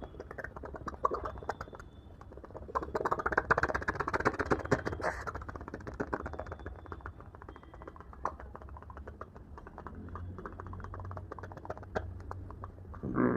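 A man imitating a helicopter with his mouth: a fast train of chopping pulses like rotor blades, swelling louder about three seconds in and easing back about two seconds later.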